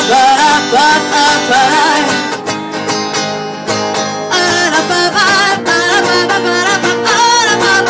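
Live acoustic band playing: strummed acoustic guitar with a wavering wordless melody line over it, between the sung lines of the song.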